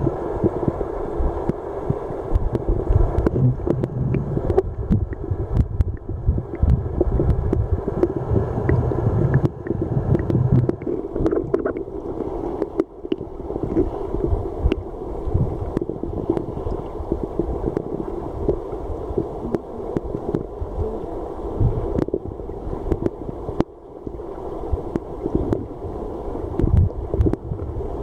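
Flowing river water heard underwater: a steady, muffled rushing and rumbling with many small clicks and knocks scattered through it.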